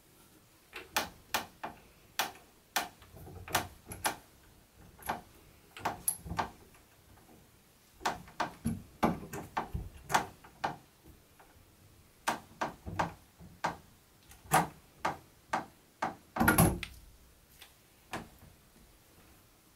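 Sharp clicks and knocks in short irregular runs, with a louder cluster near the end, from metal hand tools working on hardware at the side of a wooden ladder.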